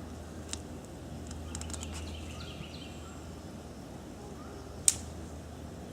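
Outdoor ambience: a steady low rumble with faint bird chirps and scattered clicks, and one sharp snap about five seconds in.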